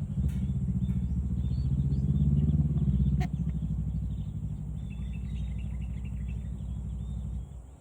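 A motor vehicle engine running with a low, steady hum that swells a couple of seconds in, eases off, then cuts off suddenly near the end. Faint bird chirps sound over it in the second half, with a single sharp click about three seconds in.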